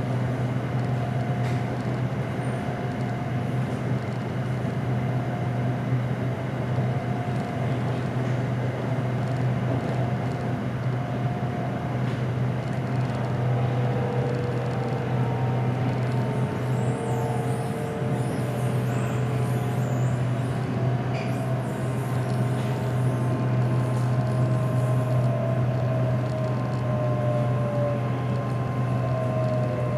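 SRT Red Line electric commuter train running, a steady low hum with several faint whining tones that drift in pitch in the second half. The train is held to reduced speed on this stretch because thieves cut its signalling cables.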